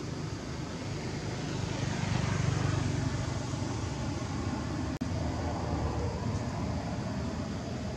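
Low, steady engine rumble of a distant motor vehicle, swelling about two to three seconds in as if passing, with a momentary dropout about five seconds in.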